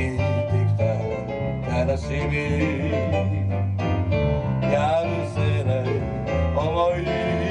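A small band playing live: a man singing, with a nylon-string classical guitar, an electric bass line and keyboard.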